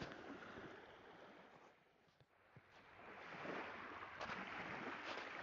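Water splashing and lapping, with a few small knocks; it fades almost to silence about two seconds in and builds back up a second later.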